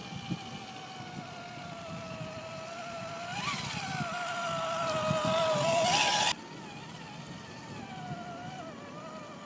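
Electric motor and geared drivetrain of an Axial SCX10 Deadbolt RC crawler whining as it drives, the pitch wavering with the throttle. It jumps up about a third of the way in and grows louder, then cuts off abruptly about six seconds in and carries on more quietly.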